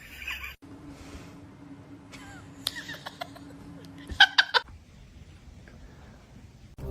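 An animal's short, high cries, three in quick succession about four seconds in, over a steady low hum.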